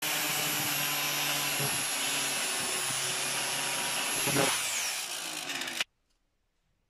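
Bench-mounted angle grinder running with a high whine while a steel piece is ground against its disc, throwing sparks. Near the end the whine drops in pitch, and the sound cuts off suddenly, leaving near silence.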